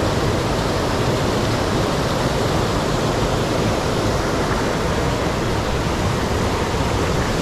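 Water rushing steadily over a small rocky cascade in a river, an even, unbroken noise.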